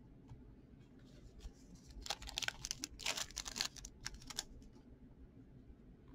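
Hockey cards pulled from an opened foil pack: a quick run of papery rustling and card-stock clicks, starting about two seconds in and lasting about two seconds, with a few faint ticks of card handling before and after.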